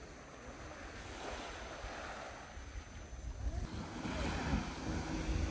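Gentle waves washing over a pebble beach, with wind on the microphone.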